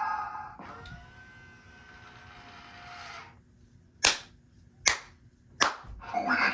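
A fading tone, then three sharp clicks a little under a second apart.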